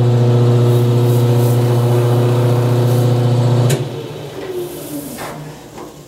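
Lathe motor running with a steady hum, and the hiss of buffing as a wooden kaleidoscope tube spins. The lathe is switched off a little under four seconds in and spins down, its hum falling away.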